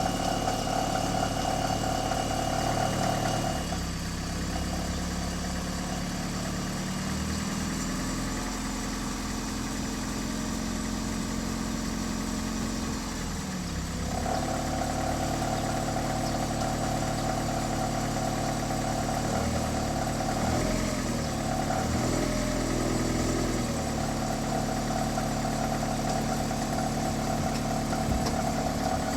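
Honda Step WGN RK6 engine idling with a steady whine over the engine hum. The whine drops out about four seconds in and comes back about ten seconds later, and the idle wavers briefly near the middle. This is the abnormal engine noise the owner traced to a faulty external drive-belt tensioner.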